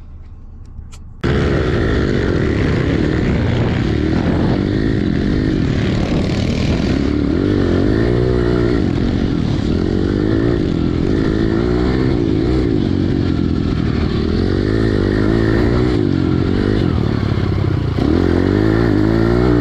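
Pit bike engine under race throttle, heard from the rider's own helmet camera, its pitch rising and falling again and again as the throttle opens and closes. It cuts in suddenly about a second in.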